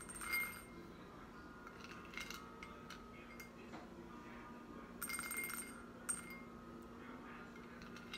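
A plastic spoon clinking against small glass bowls as beans are scooped and tipped from one bowl to the other. There is a sharp clink just after the start, a few lighter taps, and a cluster of clinks and rattling beans about five seconds in.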